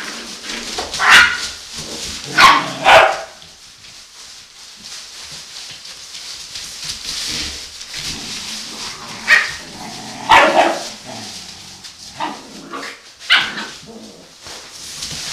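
Puppies barking and yipping as they play-fight: a few loud, sharp barks in the first three seconds and more from about nine to thirteen seconds in. Between the barks there is a soft rustle of the shredded newspaper bedding as they move.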